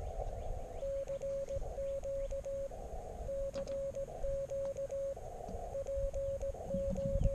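Elecraft KX3 transceiver sending a CW call from its memory keyer: a single steady tone keyed on and off in Morse code dots and dashes. Short patches of receiver hiss come through in the longer gaps between characters.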